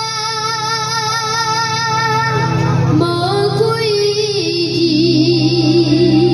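A young singer singing a Taiwanese Hokkien ballad over a backing track, holding a long note with vibrato, then starting the next line about three seconds in.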